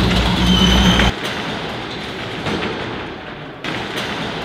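Steel roll-up warehouse door rattling and clattering as it is worked by its hand chain. About a second in, a loud low hum cuts off, leaving the irregular metal rattle.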